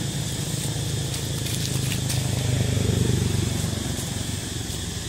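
Steady low rumble, slightly louder in the middle, with a few faint crackles of dry leaf litter being stirred.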